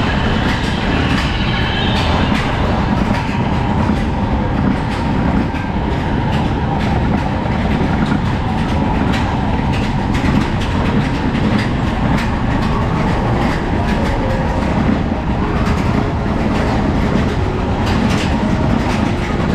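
Indoor roller coaster train running along its track, heard from a seat on board: a loud, steady rumble with constant rattling and clicking from the wheels and cars.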